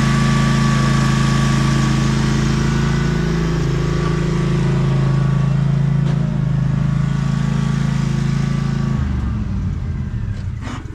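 Lawn mower engine running steadily, its tone changing abruptly about nine seconds in.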